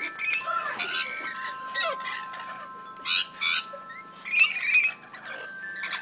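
Parrots squabbling at a seed feeder, a sulphur-crested cockatoo and a rainbow lorikeet, with harsh squawks in three bursts: about a second in, around three seconds and around four and a half seconds. Metal wind chimes ring steadily behind them.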